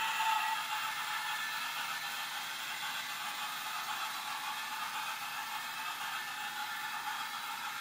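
Toy train on a ring of track mounted around a Christmas tree, running with a steady high-pitched motor whir.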